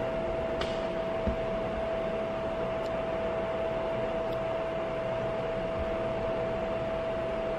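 Cooling fan of a 19-LED wash moving head light running steadily: an even whirring hiss with a steady mid-pitched whine over it, a fan that is not really quiet. A faint tick comes about a second in.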